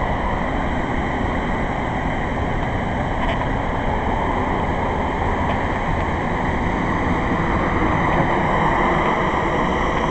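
Steady, loud rushing noise with a deep rumble underneath, unbroken throughout.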